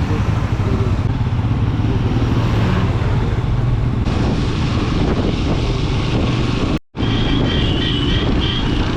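Motorcycle engine running steadily while riding on the road. The sound cuts out for a split second about seven seconds in, and a faint high wavering tone follows briefly after.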